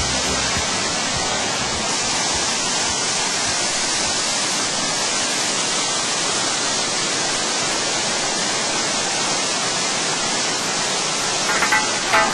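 Waterfall rushing steadily over stepped rock terraces, an even roar of water. A few short knocks come near the end.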